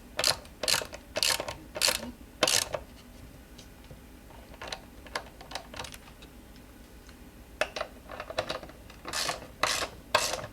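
Ratchet wrench with a 21 mm socket clicking through short back-and-forth strokes as it tightens an e-scooter's rear axle nut. There is a run of strokes about every half second at the start, fainter ticks in the middle, and more strokes near the end.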